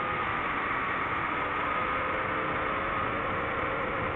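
DJI FPV drone's motors and propellers running steadily: a whine at a few slightly wavering pitches over a rushing noise.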